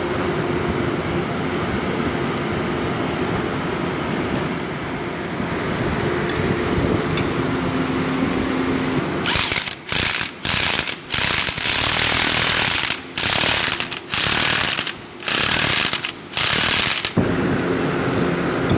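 Impact wrench hammering in about eight short bursts over some eight seconds, starting about halfway through, as it runs down and tightens the crankshaft end bolt that holds the compressor's motor rotor. Before it, only a steady low workshop hum.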